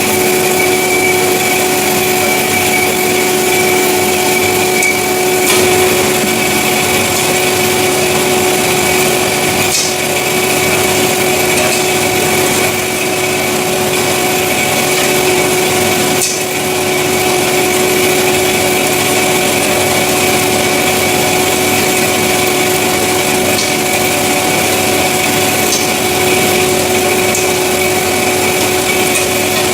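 Semi-automatic metal-cutting band saw running steadily, its motor and blade giving an even hum with a high steady tone above it.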